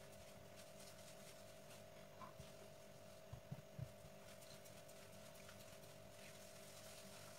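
Near silence over a faint steady hum, with a few soft thuds a little past the middle as dough balls are pressed and rounded by hand on a floured stone counter.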